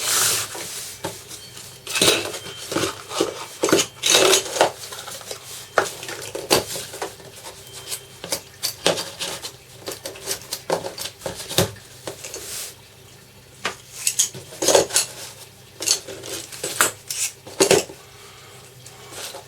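Packs of steel staples and nails and a hex key being handled and taken out of their box, clinking and rattling in irregular short clicks.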